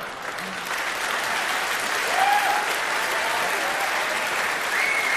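A studio audience applauding, with the clapping swelling slightly about two seconds in.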